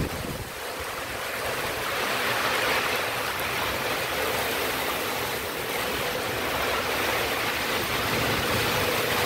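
Heavy tropical downpour: a steady hiss of rain falling on waterlogged, flooded ground, swelling over the first couple of seconds and then holding.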